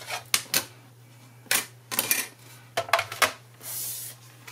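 Clear plastic cutting plates of a die-cutting machine clacking and knocking together as the plate stack is pulled out of the machine after a cut and taken apart: a series of sharp clicks, with a short scraping slide near the end.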